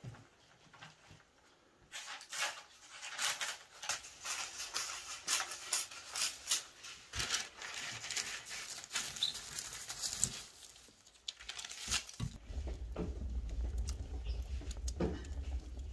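Parchment paper rustling and crinkling in quick bursts as a sheet is handled and pressed into a metal baking tray. Near the end this gives way to a steady low rumble with a few crackles from a wood fire burning.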